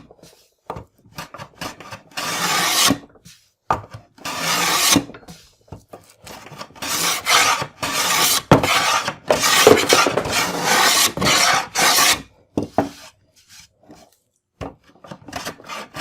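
Hand tool shaving wood from a tenon face in repeated rasping strokes, each about a second or two long with short pauses between, while the tenon is trimmed to size.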